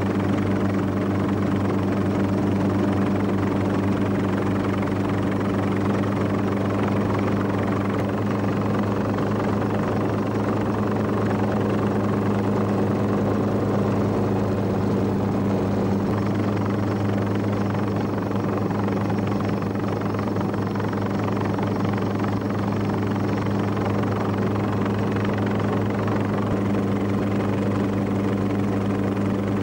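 Helicopter in flight heard from on board: a steady engine and rotor drone with a constant low hum, unchanging in pitch and level.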